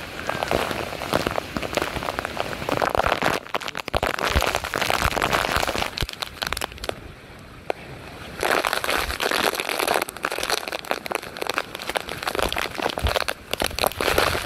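Hurricane rain and wind: heavy rain pelting down in gusts, with crackling as drops strike the microphone. It eases briefly past the middle, then surges back.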